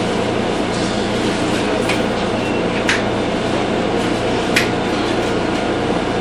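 Interior running noise of a 1981 Kawasaki subway-surface trolley car in motion: a steady rumble and hum, with two brief sharp high squeaks about three and four and a half seconds in.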